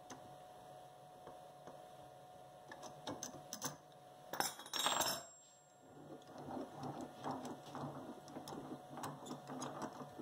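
Steel wrenches clatter down onto the wooden work table about four and a half seconds in. Then the crank of the homemade wooden vise is turned, the steel threaded rod and jam nuts giving a quick run of rhythmic clicks and rattles as the jaw moves.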